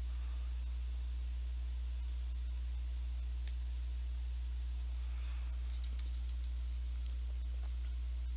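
A steady low hum with a few faint clicks about three and a half, six and seven seconds in.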